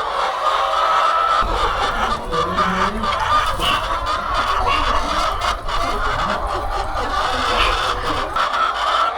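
A flock of hens clucking, many birds at once. A low rumble joins in about a second and a half in and fades near the end.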